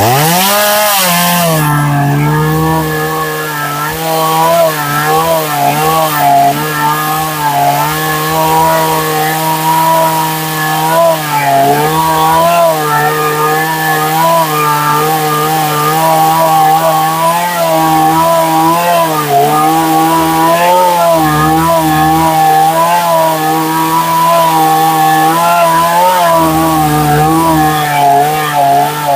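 Stihl chainsaw revving up in the first second or so, then running at high speed as the top of the bar is worked along the square edges of a western red cedar block to round them off. Its pitch dips and wavers now and then under load.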